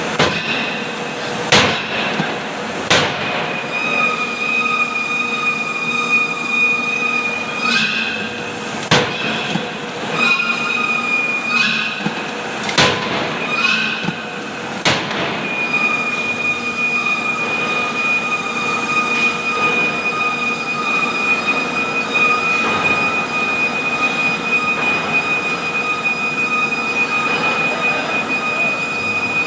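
Heavy forging-hammer blows on metal, a handful at irregular intervals in the first half and none after about fifteen seconds, over a steady high-pitched whine and the continuous noise of shop machinery.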